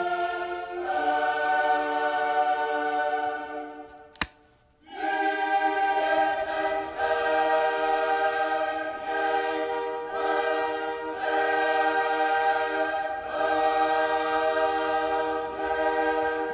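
Slow choral music: voices hold sustained chords that change every second or two. About four seconds in the music fades out, a single sharp click sounds, and the singing starts again a second later.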